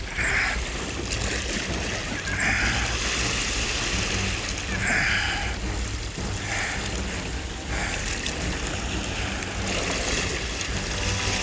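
Sea water lapping and splashing close by, rising in surges every couple of seconds.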